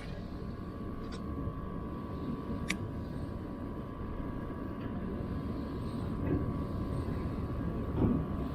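Boat motor running steadily on a small fishing skiff: a low rumble with a steady whine over it, and a few faint clicks.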